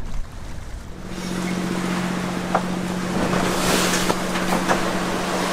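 A catamaran under way on choppy open sea: a steady rush of wind and water with a steady low hum under it. About a second in, the quieter rumble gives way to the louder rush and hum, with a few light knocks.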